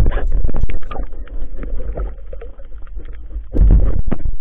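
Water sloshing and knocking around the camera as the mesh catch bag is handled, with scattered clicks. There are two loud low surges, one at the start and one about three and a half seconds in.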